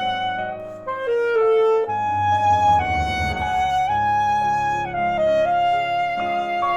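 Alto saxophone playing a melody of long held notes with vibrato, and a short rising run about a second in, over piano accompaniment.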